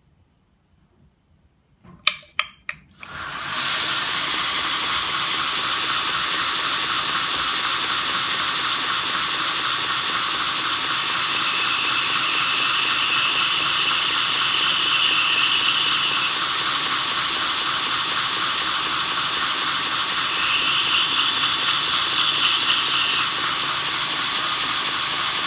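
Belt grinder starting up about two seconds in with a few clicks, then running steadily at a pretty low speed. Twice, for several seconds each, a steel twist drill bit is pressed against the moving belt to sharpen the second side of its tip, adding a higher grinding hiss.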